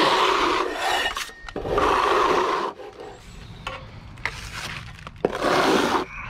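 A trowel scraping hybrid render across a wall in four strokes of about half a second to a second each. A quieter stretch in the middle holds small clicks and taps.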